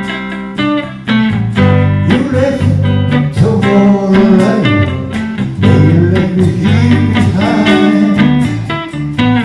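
Blues music led by a plucked guitar, playing an instrumental passage with bending notes.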